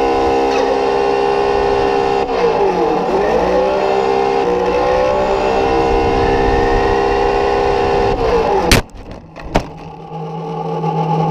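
Traxxas RC car running at speed with a steady high drivetrain whine, which dips in pitch and climbs back about two to three seconds in as it slows and speeds up again. Near the end it crashes and flips over: a loud bang, a second knock under a second later, then the whine builds again.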